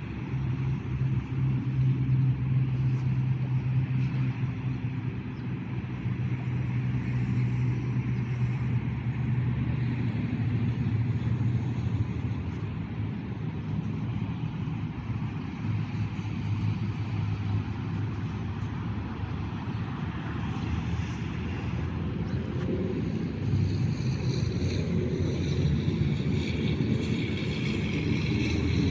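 Steady hum of a motor vehicle's engine running, with higher-pitched tones building in over the last few seconds.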